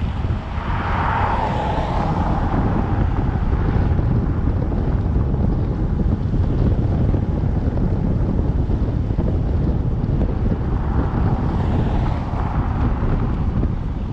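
Wind buffeting the microphone of a camera on a moving vehicle: a steady low rumble mixed with road noise. A hissing swell rises briefly about a second in and again near the end.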